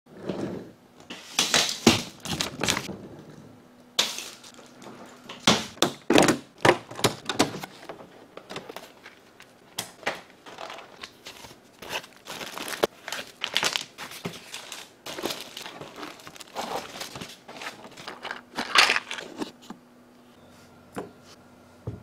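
Plastic packaging bags crinkling and rustling as keyboard parts are handled, with scattered sharp clicks and knocks; it goes much quieter near the end.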